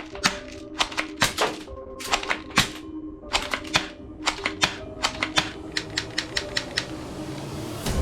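Toy guns clicking sharply as they are fired, irregular at first, then a quicker, even run of about four to five clicks a second in the second half, over background music.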